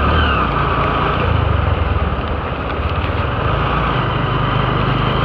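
Motorcycle running steadily at riding speed, its low engine hum under a steady rush of wind and road noise on a wet road.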